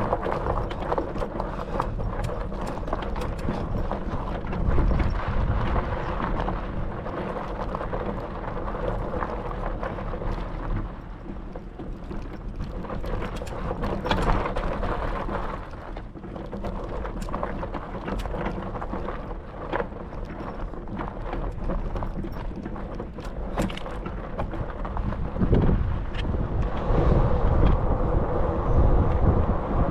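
A two-wheeler riding over a rough track: a steady running drone with many small rattles and knocks, and wind buffeting the microphone. It grows louder near the end.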